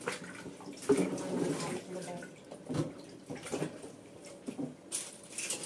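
Water running from a kitchen tap into a stainless steel sink, splashing unevenly as hands move under it.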